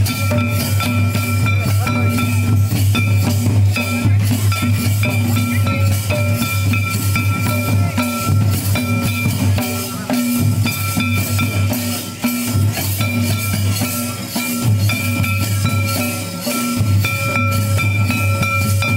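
Santal folk dance music, loud: drums beating throughout under sustained held notes that break off every few seconds.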